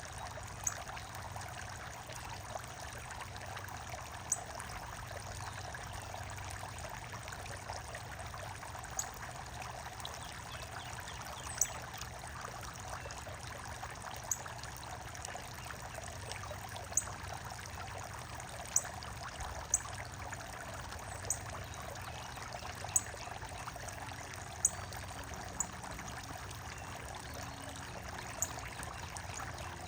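Steady trickling and pouring of running water in a backyard water feature. Short, high, sharp bird chip notes come every second or two.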